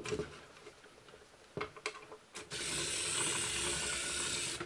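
Small N20 gear motor on 5 volts driving the slew gear of a model excavator, turning its upper body: a steady gear whir that starts about halfway through and runs for about two seconds, after a few faint clicks.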